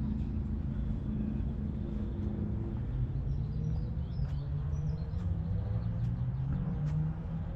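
A motorbike engine running steadily, its pitch stepping up about three seconds in and then creeping slowly higher. Birds chirp over it.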